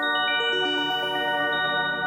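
Korg opsix six-operator FM synthesizer playing a run of pitched notes that enter one after another and keep ringing, overlapping into a sustained cluster.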